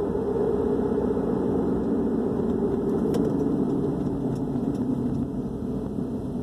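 Steady low rumble of a running vehicle engine, with a few faint clicks around the middle.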